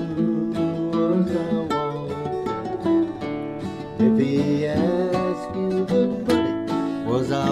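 Music: acoustic guitar playing, plucked strings picking out a changing line of notes.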